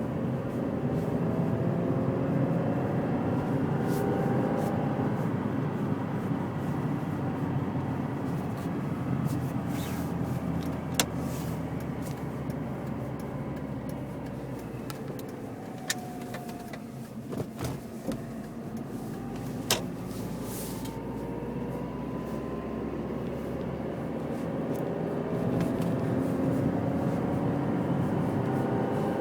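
Chevrolet Niva on the move, with a howling whine over steady engine and road noise; the whine rises and falls in pitch with speed. The noise eases off around the middle, with a few sharp clicks, and builds again near the end.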